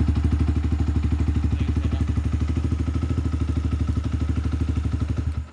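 Yamaha R15 V2's single-cylinder four-stroke engine idling steadily, having started once the starter relay was bypassed, which marks the relay as the fault. It cuts off suddenly near the end.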